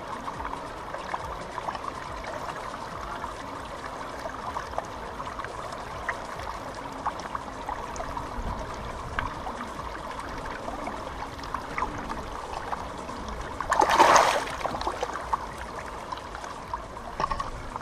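Shallow river water trickling and lapping around a hand holding a large asp in the current, with small splashes. Near the end comes a single loud splash as the released fish kicks free.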